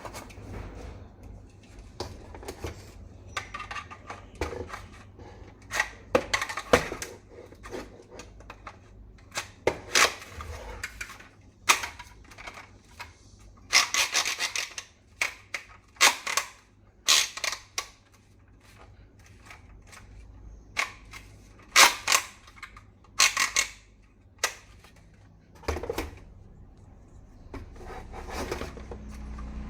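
Plastic toy rifle and its parts being handled: irregular clicks, snaps, rattles and scrapes, with several loud clusters of quick clicks in the middle.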